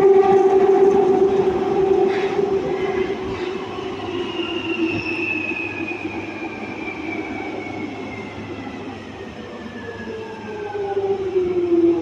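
Jubilee line 1996 Tube Stock train running through a tunnel, heard from inside the carriage: a steady running rumble with a whine that falls slowly in pitch, and a lower tone that swells and drops in pitch near the end.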